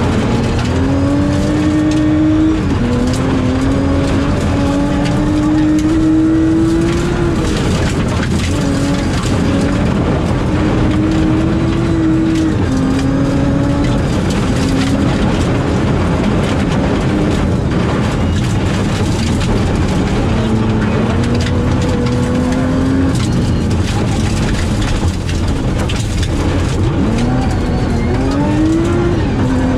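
Rally car engine, heard inside the cabin, revving hard through the gears: its pitch climbs and drops back at each upshift, several times, over constant gravel and tyre noise.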